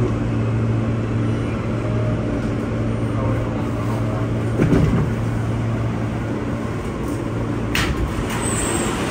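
Interior of an Alstom R160A New York City subway car standing still: a steady hum from the car's onboard equipment, with a low bump about halfway through and a sharp click near the end.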